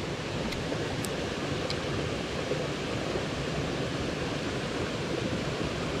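Steady rushing of a mountain stream's water, with a few faint clicks in the first two seconds.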